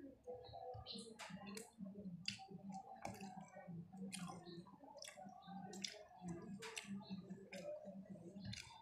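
Soft, irregular clicks and wet squelches of eating by hand close to the microphone: lips smacking and fingers picking at saucy chicken liver and gizzards.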